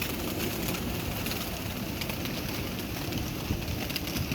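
Birds feeding on scattered feed, with faint small clicks throughout over a steady outdoor background noise.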